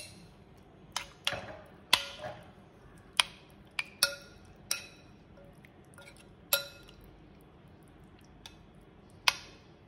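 A metal spoon stirring chicken in a thick marinade in a glass bowl, clinking against the glass about ten times at irregular intervals, each clink ringing briefly.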